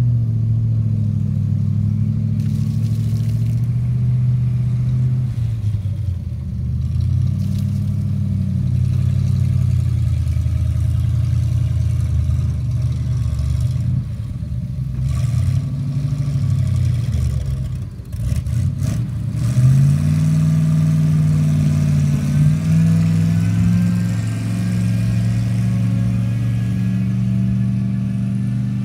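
1959 Chevrolet fire truck's engine running steadily; about two-thirds of the way through its speed dips and then rises, settling at a slightly higher, steady speed.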